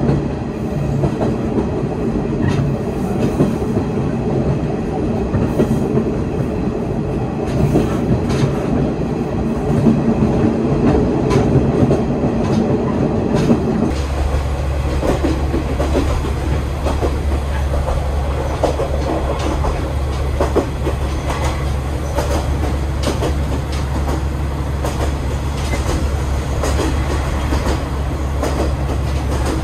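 Aizu Railway diesel railcar running along the line, its wheels clicking over the rail joints against a continuous rumble. About halfway the sound changes abruptly to the steadier low engine drone and joint clicks heard inside the car.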